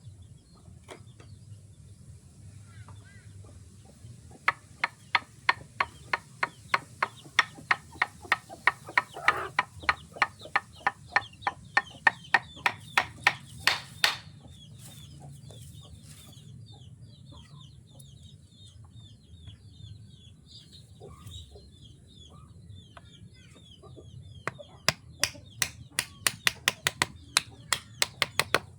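Hammering on wood: a run of sharp, evenly paced blows, about three a second, lasting roughly ten seconds, then a quiet stretch and a second shorter run of blows near the end. Faint chirping runs underneath.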